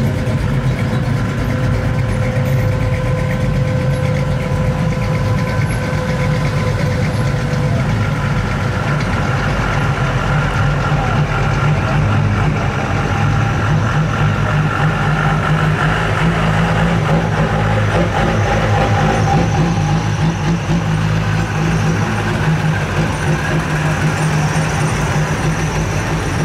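Engines of classic pickup trucks and an old hot rod idling as they roll slowly past: a steady low engine rumble.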